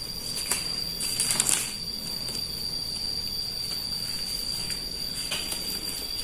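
Rustling and crinkling of sterile gloves being handled and pulled on, loudest about a second in. A steady thin high-pitched tone runs underneath.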